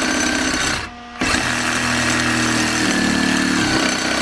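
A small 12-volt cordless saw cutting through a metal pump casting held in a vise. The motor stops briefly about a second in, then starts cutting again, and its pitch shifts partway through as the load changes.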